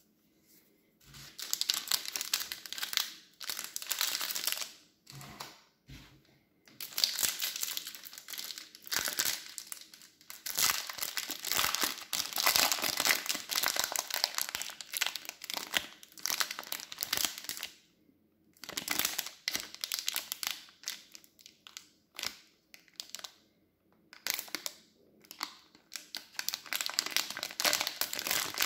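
Plastic and foil ration packaging crinkling and rustling as it is handled, in irregular bursts with short pauses. A few soft knocks come in the first few seconds.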